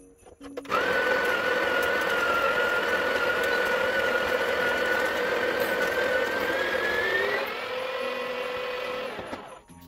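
Breville Barista Pro's built-in conical burr grinder running with a steady whine. Its pitch rises about seven seconds in, and it stops near the end.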